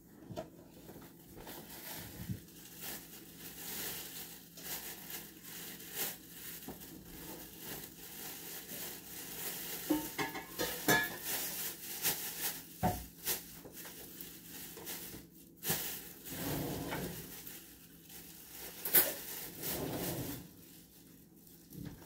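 Irregular light clicks, knocks and rustling, busiest about ten to thirteen seconds in, with one sharper knock near the end, over a faint steady low hum.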